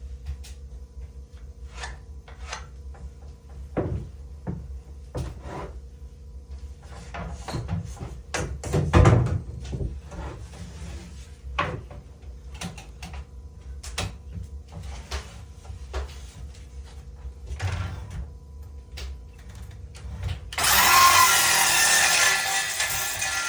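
Wood and tools knocking and clattering during carpentry work, with a heavy thud about nine seconds in. About three seconds before the end a power tool starts up and runs loudly.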